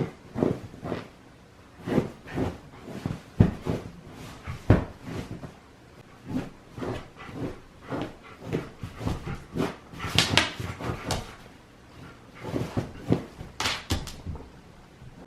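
Dogs fighting: a run of short, irregular dog growls and yips with scuffling, and two sharper, higher cries about ten and about fourteen seconds in.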